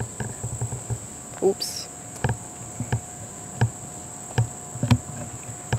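Steady high-pitched chorus of crickets or similar night insects, with a fainter steady lower tone beneath it. From about two seconds in, soft regular footstep knocks at a walking pace, about one every two-thirds of a second.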